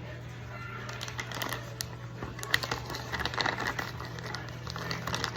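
Plastic packaging crinkling and rustling as it is handled, with scattered light clicks and taps, over a steady low hum.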